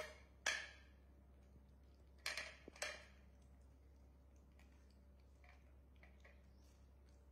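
A few short, sharp clicks and knocks of corn cobs and small hands on ceramic plates: two close together at the start and two more a little after two seconds, the loudest about half a second in, then only faint ticks.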